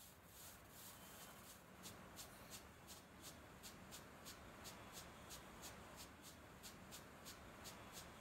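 Small camera-shaped "Photo Flash" novelty ground firework burning: a faint, steady hiss of spraying sparks with light crackles about three or four times a second.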